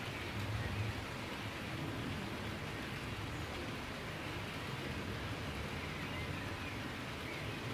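Model train of grain hopper cars rolling on sectional track: a steady rolling rumble of wheels on rail joints.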